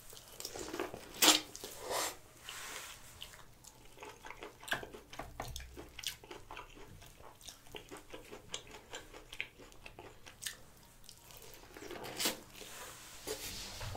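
Biting into and chewing sauce-dipped corn on the cob, with wet mouth sounds and crisp kernel crunches. The sharpest bites come about a second in and near the end.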